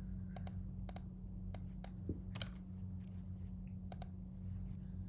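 Scattered, irregular clicks and key taps on a computer keyboard and mouse, over a steady low hum.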